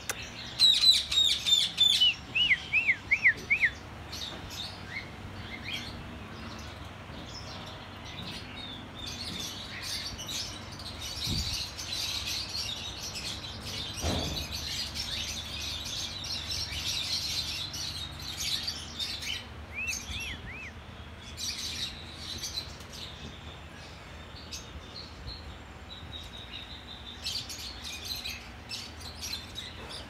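Many caged birds chirping and twittering together in an aviary. A quick run of loud, repeated chirps comes near the start, then a busy chatter of calls. A dull knock sounds about halfway through.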